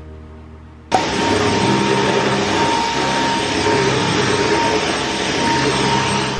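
A household electric appliance motor switched on about a second in, running steadily at full speed with a loud hiss and a steady whine, then switched off near the end, its pitch falling as it winds down.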